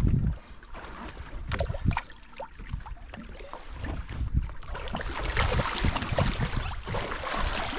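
Sea water slopping against a small boat's hull with wind buffeting the microphone and scattered knocks. From about five seconds in, a louder splashing builds as a hooked dolphinfish thrashes at the surface beside the boat.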